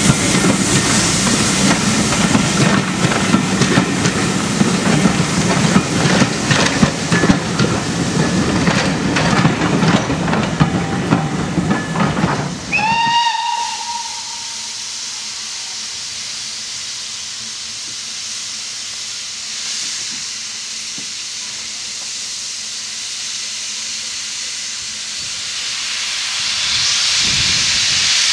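Railway coaches clattering past over the rail joints, then one short steam whistle blast of about a second that rises at its start. After that a steam locomotive hisses steadily, and the hiss swells near the end as it moves off with steam blowing from its cylinder drain cocks.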